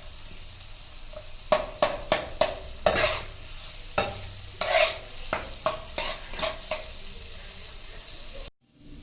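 Chopped onions sizzling as they fry in oil in a pan, stirred with a spatula that scrapes and knocks against the pan about three times a second through the middle. The sound cuts out briefly near the end.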